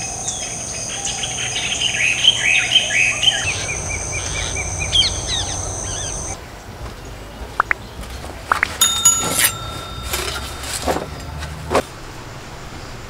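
Birds chirping over a steady high-pitched insect drone that stops about six seconds in. Then a few sharp clicks and a brief ringing tone, the sound effects of a subscribe-button animation.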